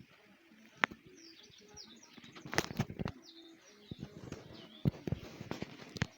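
Small birds chirping in quick, high, downward-sweeping notes, over a few sharp knocks and thuds that come in two clusters, about two and a half and five seconds in.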